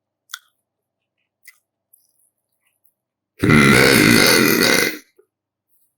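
A person gives a single long, loud burp lasting about a second and a half, starting just past the middle. A short faint click comes before it.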